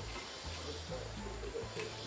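Background music with a low bass line that steps between notes.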